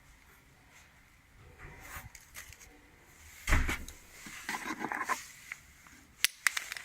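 Handling noises from unpacking a tool case: a solid knock about halfway, a short stretch of rustling, then two sharp clicks near the end.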